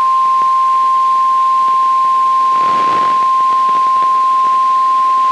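Emergency alert attention tone: one steady, unbroken tone at about 1050 Hz, the NOAA Weather Radio warning alarm, sounding loud over a faint hiss. It signals that a severe thunderstorm warning message follows.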